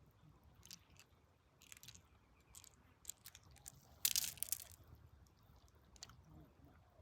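Gravel and stones crunching and clicking as they are dug or handled, in scattered short sounds, with one louder scraping crunch about four seconds in.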